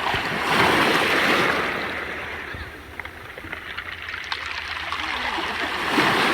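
Sea waves washing up a pebble beach. The wash surges about half a second in, draws back, and surges again near the end, with small pebble clicks scattered through it.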